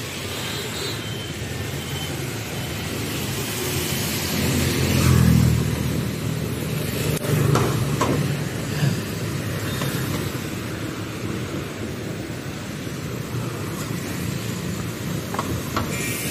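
Street traffic passing close by: a city bus, a car and motorbikes driving past with a low engine rumble, loudest about five seconds in.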